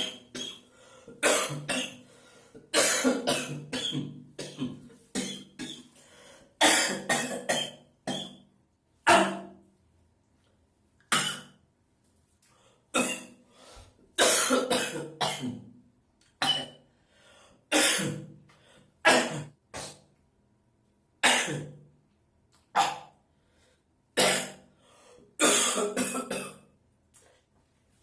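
A man coughing over and over, in single coughs and quick clusters of several, with short pauses between and some throat clearing: a fit of coughing that keeps on.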